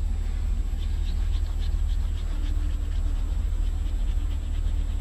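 Coloured pencil shading on paper: quick back-and-forth scratching strokes, several a second, starting about a second in, over a steady low rumble.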